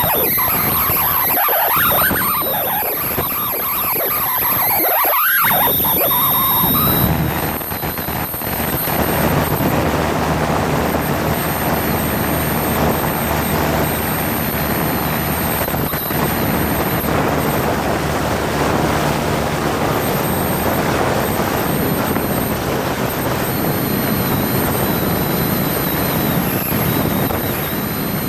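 Cessna 172 cabin: the stall warning horn wails with a wavering pitch for about the first seven seconds, as it does in a landing flare. Then only the steady noise of the engine and the wind remains.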